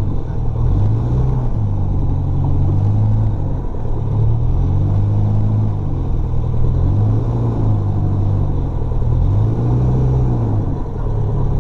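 Jabiru UL-450's four-cylinder Jabiru 2200 engine and propeller running at low taxi power, heard from inside the cabin. A steady drone whose pitch rises and falls slightly as the throttle is worked.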